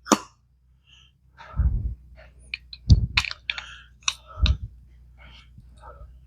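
Metal parts of an SU carburettor being handled on a workbench: scattered light clicks and three heavier knocks, spaced about a second and a half apart.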